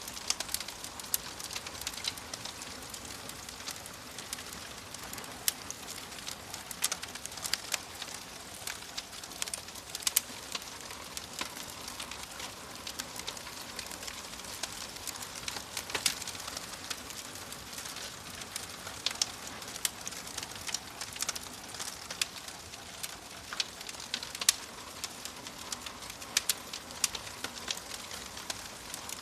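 Wood fire crackling in a fireplace: a steady hiss of burning with frequent sharp, irregular pops and snaps.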